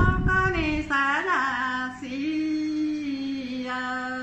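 A woman singing a Dao call-and-response folk song (hát đối đáp) through a microphone: long held notes with quick ornamental turns, the melody stepping down and settling on a long low note that stops just at the end.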